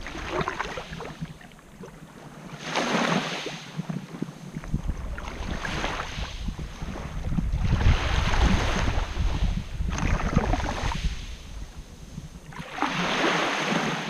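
Small sea waves washing up onto a shore of coarse quartz sand, about five washes that each swell and fall away over a second or two, with wind buffeting the microphone as a low rumble.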